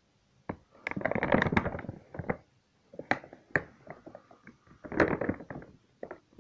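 Plastic bag of Serious Mass gainer powder crinkling and rustling as a hand digs inside it, in irregular bouts of sharp crackles, loudest about a second in and again around five seconds in.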